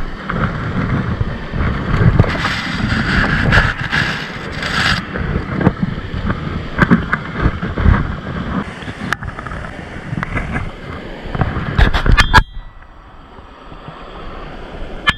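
Fast river water rushing over a rocky riffle, with wind buffeting the microphone. A few sharp clicks of handling come near the end, and a little past two-thirds of the way through the noise drops suddenly to a much quieter hiss.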